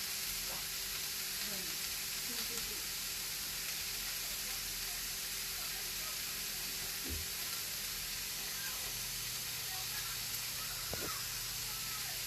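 Diced onion, bell peppers and shredded chicken sizzling steadily in hot oil in a large pot as they sauté until the onion turns translucent.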